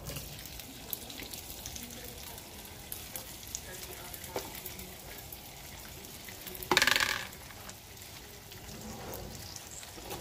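Cubed slab bacon frying in a hot skillet, a steady crackling sizzle. About seven seconds in there is a brief loud noise.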